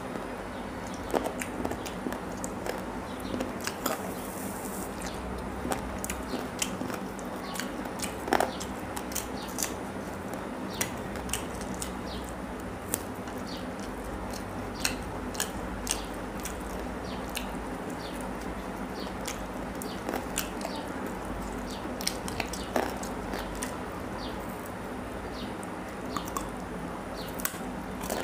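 Close-miked chewing and mouth sounds of a person eating chicken curry and rice by hand: scattered short wet clicks and smacks over a steady background hum.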